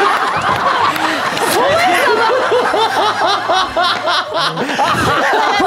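Several people laughing together at once, a run of quick overlapping ha-ha bursts, after a joke's punchline.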